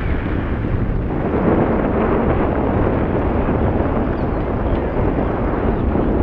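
Wind buffeting the phone's microphone: a loud, steady low rushing noise.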